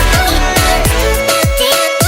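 Loud electronic dance music with a steady kick-drum beat and synth notes.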